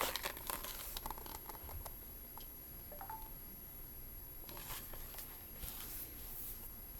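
Faint paper rustling and soft handling clicks as a storybook page is turned.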